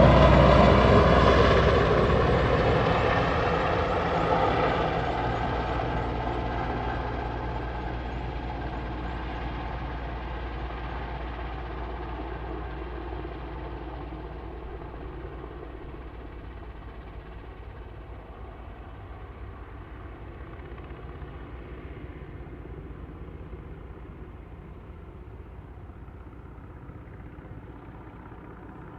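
A motor vehicle passing close and then receding into the distance, its sound fading steadily and growing duller over about fifteen seconds, leaving a faint low engine hum.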